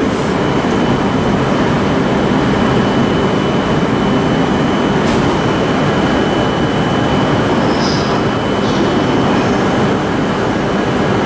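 Steady rumble of electric trains running on the tracks, with a thin constant high whine over it. A brief high squeak comes about eight seconds in.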